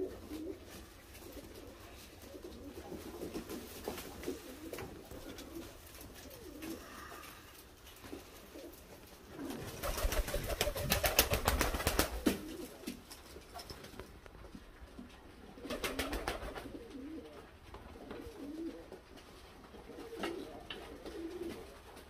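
Uzbek double-crested pigeons cooing softly in a loft. A louder rapid clattering comes about ten seconds in, and a shorter one near sixteen seconds.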